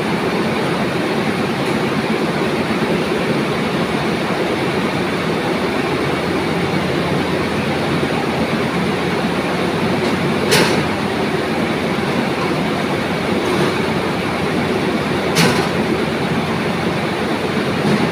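Textile mill comber machines and other spinning machinery running in a loud, steady din. Two sharp clacks about ten and fifteen seconds in.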